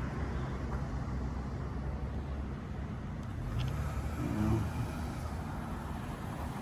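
A motor vehicle running: a steady low rumble, briefly louder about four and a half seconds in.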